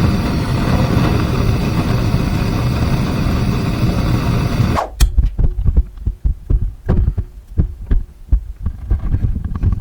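Gas torch flame running steadily for about five seconds, heating an exhaust manifold around a broken stud to free it, then cut off suddenly. Irregular low thumps follow.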